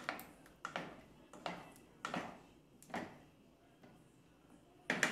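Wooden spoon stirring sausages in tomato sauce in a cooking pot, scraping and knocking against the pot in regular strokes about every three-quarters of a second, then a pause and a louder double knock near the end.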